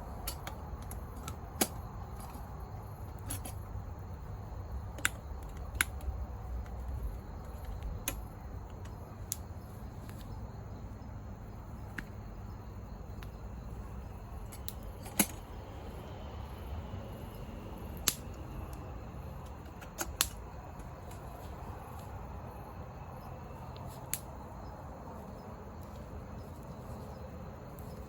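Campfire wood crackling, with sharp irregular pops every second or two over a low steady rumble.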